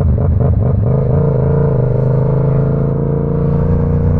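Yamaha R7's 689 cc parallel-twin engine running under way. It is choppy for the first second, then settles into a steady drone at even revs.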